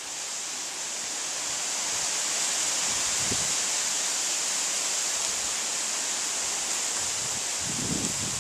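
A steady hiss, strongest in the high range, that grows a little louder over the first two seconds, with a few soft low thumps about three seconds in and near the end.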